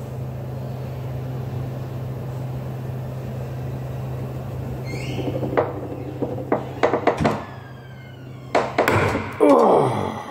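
Breaker bar and socket clicking and knocking on a Ducati 749S camshaft pulley nut, clamped in a bench vise, as the loosened nut is turned off. There is a short rising squeak about five seconds in, and a louder cluster of clanks near the end, over a steady low hum that stops about seven seconds in.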